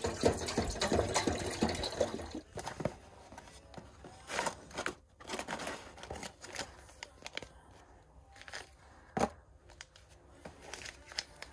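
Water pouring from a plastic jug into a cooking pot, stopping about two and a half seconds in. Then the cardboard of a tea box and paper tea bag packets rustle and crinkle as they are handled, with one sharp tap about nine seconds in.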